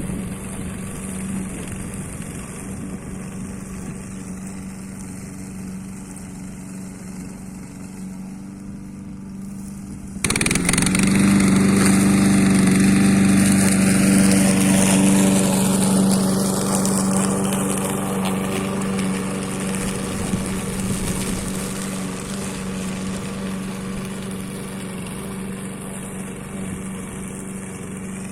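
DDE lawn mower engine running steadily while mulching wet fallen leaves. About ten seconds in it gets suddenly louder and harsher, then slowly settles back down.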